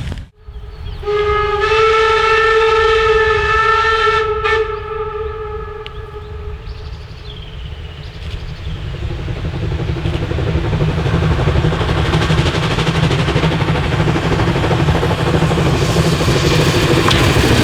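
A steam locomotive's whistle blows one steady note for about three and a half seconds. Then the train is heard running, the rumble of the locomotive and wheels on the rails building up louder toward the end.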